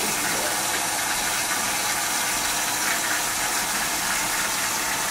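Steady hiss of covered pots cooking on a lit gas stove, with potato greens in palm oil steaming and frying under a closed lid.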